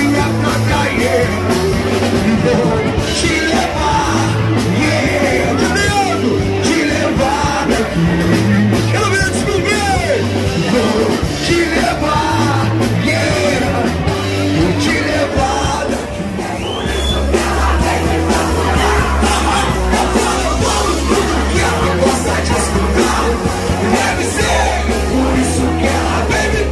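Live rock band playing loud through a PA, with a singer's vocal over electric guitar and bass. The music dips briefly about two-thirds of the way through, then comes back with a heavier bass.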